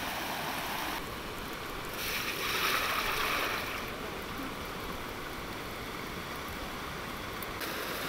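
Shallow rocky river running: a steady rush of water over stones, louder for a couple of seconds in the middle.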